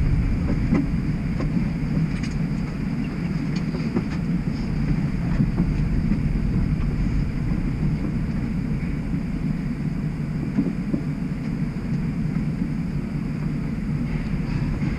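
Inside a streetcar standing still: a steady low rumble of the car's onboard equipment with a faint high whine and a few light clicks.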